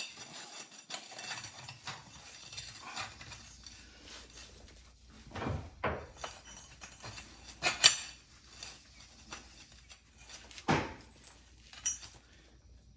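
Metal skid steer undercarriage rollers being handled and checked: irregular light clinks and rattles with a few heavier metal knocks, the loudest about eight seconds in.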